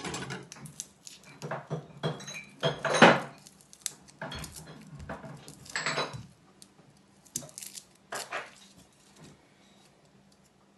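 Hands peeling the dry papery skin off garlic cloves on a plastic cutting board, with irregular crackly rustles and sharp clicks, and a kitchen knife clattering as it is set down at the start. The loudest clatter comes about three seconds in, and the sounds thin out near the end.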